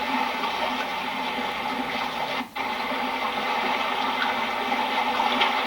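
Steady noise of water, with a brief dropout about two and a half seconds in.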